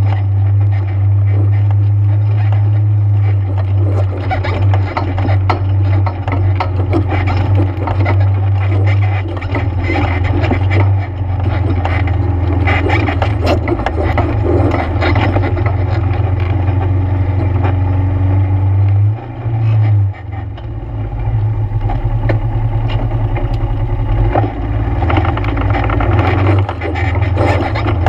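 ATV engine running steadily under way on a trail, with frequent rattles and knocks from the machine and the ground. The engine note dips briefly about two-thirds of the way through.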